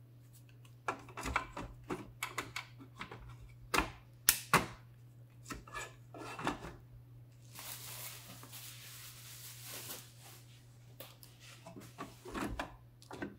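Irregular clicks and knocks of ventilator battery packs and their plastic connectors being handled and fitted into the battery bay, the loudest knocks about four to five seconds in, with a stretch of rustling about eight to ten seconds in. A faint steady low hum runs underneath.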